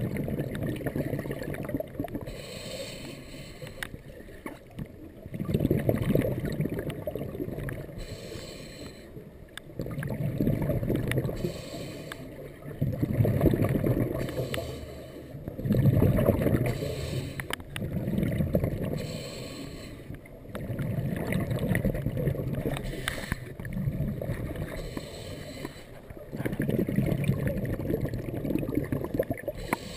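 Scuba regulator breathing underwater: bursts of exhaled bubbles rumbling every few seconds, with a fainter hiss of inhalation between them, heard through an underwater camera housing.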